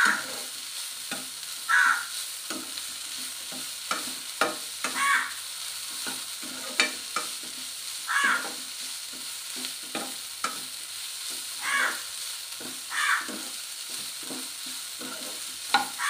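A steel spoon scraping and knocking against a nonstick kadai while stirring drumstick flower kootu, in irregular strokes every second or so. Underneath is a steady sizzle of the mixture frying.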